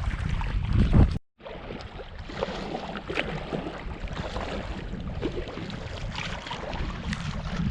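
Wind buffeting the microphone over the splash of kayak paddles and lapping water on a choppy lake. The sound cuts out for a moment about a second in.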